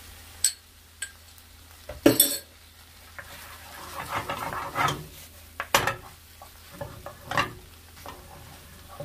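Wooden spoon stirring a bamboo-shoot and seafood stir-fry in a frying pan, with the food sizzling quietly underneath. Sharp knocks of the spoon against the pan come through, the loudest about two seconds in, and there are scraping strokes as the starch slurry is worked in to thicken the sauce.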